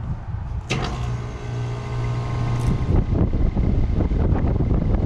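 A 2009 Ruud Achiever 3-ton central air conditioner condenser starting up: a sudden clunk under a second in, then a steady electrical hum as it begins running. About three seconds in, the hum gives way to a louder, unsteady rushing of air as the unit settles into running.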